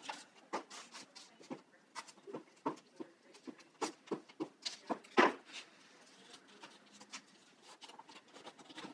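Paper cutouts and a glue stick being handled on a tabletop: scattered short rustles, taps and crinkles, the loudest about five seconds in, then quieter for the last few seconds.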